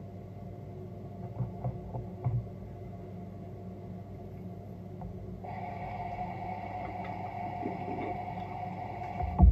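A few light clicks at a bathroom sink, then the tap running in a steady stream from about halfway through, ending with a thump near the end.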